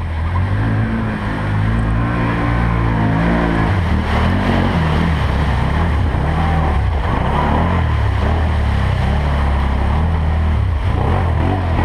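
4x4 ATV engine running under throttle, its pitch climbing over the first few seconds and then rising and falling with the revs, with a rough rushing noise over it.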